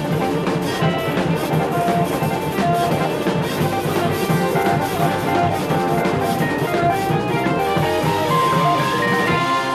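Jazz-rock fusion quartet playing live: electric guitar and keyboards over electric bass and a busy drum kit. A long high note is held from about eight seconds in.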